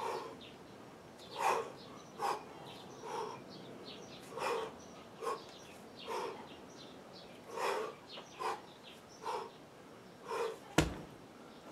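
A man's short, forceful exhalations, about one a second, in rhythm with repeated one-arm kettlebell snatches with a hand switch at the top. Near the end comes a single sharp knock, the loudest sound.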